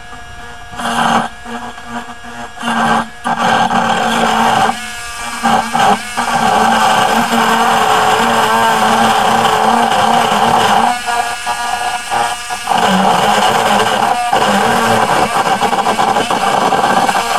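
Dremel rotary tool cutting through a metal greenhouse frame tube: a loud, high whine with grinding. It stops and starts several times, used in place of a hacksaw whose blade is too dull.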